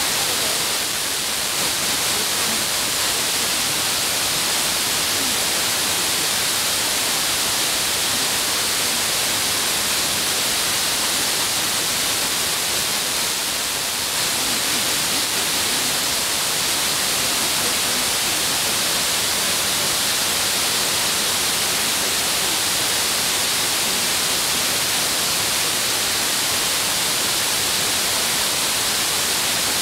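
Steady FM radio receiver hiss, loudest in the treble, with the distant 56.4 MHz station's signal faded down into the noise so that its speech cannot be made out.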